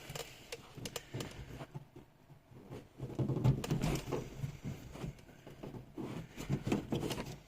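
Light plastic clicks and rustling as a door handle's wiring cable is worked out from behind its retaining hooks inside a car door, sparse at first and busier from about three seconds in.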